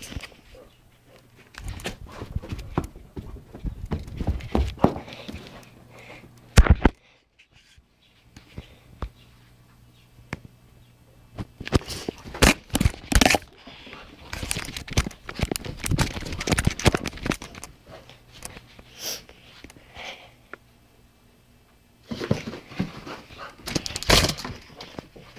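Handling noise from a handheld phone camera carried at a run while chasing a dog: bursts of rubbing, bumps and footsteps in three spells, with quieter stretches between and a brief dropout about seven seconds in.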